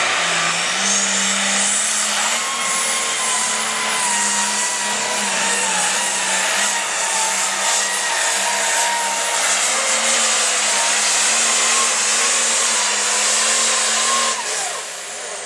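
Light Pro Stock pulling tractor's turbocharged diesel engine at full throttle, pulling the weight-transfer sled. The engine runs hard and steady with a high turbo whistle that climbs in the first two seconds and then holds. Near the end the throttle is cut, the engine drops off and the whistle falls away.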